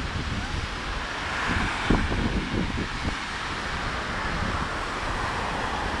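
Wind buffeting the microphone over the hiss of ocean surf breaking on the beach, with a short louder thump about two seconds in.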